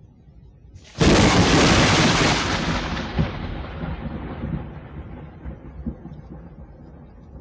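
Thunderclap sound effect: a sudden sharp crack about a second in, then a long rumble that slowly fades.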